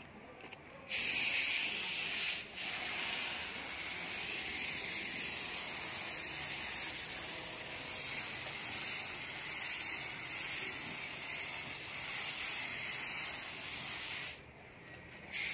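Compressed-air spray gun spraying melamine polish in a steady hiss. It starts about a second in, breaks briefly, stops near the end and starts again just before the end.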